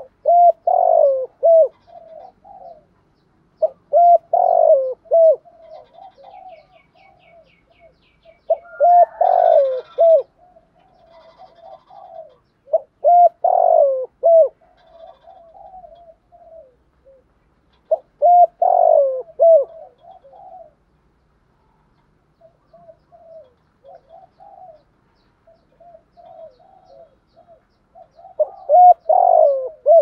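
Spotted dove cooing in the 'thổ' voice style: a loud multi-note coo phrase repeated six times, about every four to five seconds, with softer coos in between and a longer gap of only soft notes after the fifth phrase.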